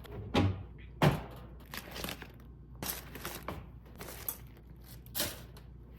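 Food containers and plastic packaging being handled and set down while a fridge is cleared out: a string of short knocks and crinkles, the sharpest about a second in and another cluster around the middle.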